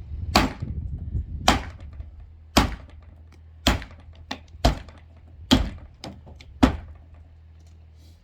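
Heavy blows struck against the timber frame of a wooden summer house: seven loud wooden thuds about one a second, with a few smaller knocks between, over a steady low rumble.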